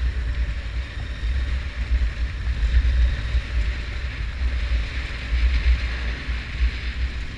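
Motorcycle riding along a gravel dirt road, heard as an uneven low rumble of wind buffeting the microphone over a steady hiss of tyres and wind.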